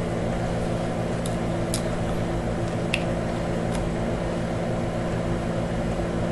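Steady low mechanical hum, with a few faint light clicks as a small lip-stain tube is handled.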